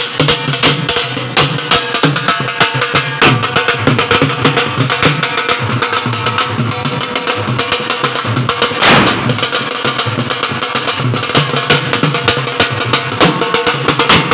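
Two dhols, Punjabi double-headed barrel drums, played together in a fast, steady rhythm, with one louder bang about two-thirds of the way through.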